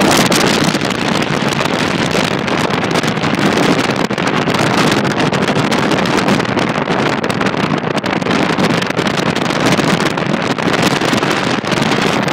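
Steady wind rushing over the microphone from an open window of a slowly moving car, with the car's road noise underneath.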